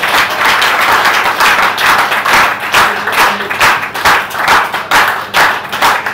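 Audience applauding, the scattered clapping settling about halfway in into rhythmic clapping in unison, about one and a half claps a second.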